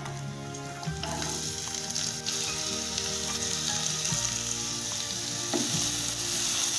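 Chopped onion and green chillies hitting hot oil in a nonstick pan: the frying sizzle starts about a second in and keeps going as a wooden spatula stirs them.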